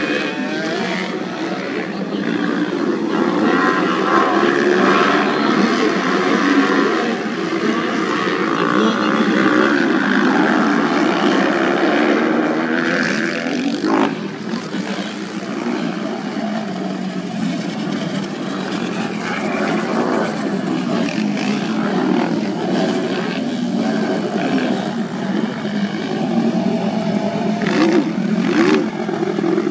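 Several motocross bike engines running at once, their pitch wavering up and down as the riders rev and accelerate around the track.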